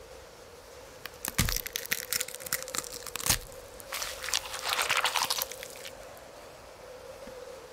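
A run of sharp crackling, crunching clicks from about one to six seconds in, densest near the end of that stretch, over a faint steady hum.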